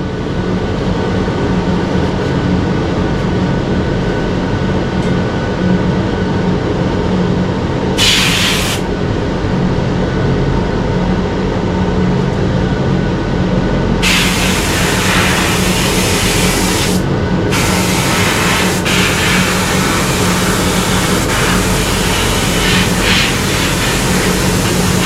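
Air spray gun hissing over a steady mechanical hum: a short spray burst about 8 seconds in, then a long spray from about halfway through with a brief stop near 17 seconds.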